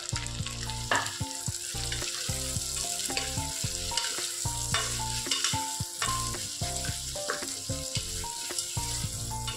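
Sliced onions sizzling as they fry in hot ghee and oil in a stainless-steel pressure cooker, stirred with a spatula that knocks and scrapes against the pot, over background music.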